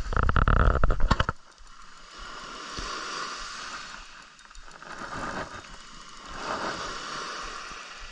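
A spinning reel's drag ratchets loudly for about a second as a hooked fish pulls line off. Then small waves wash on the shore, swelling and falling back three times.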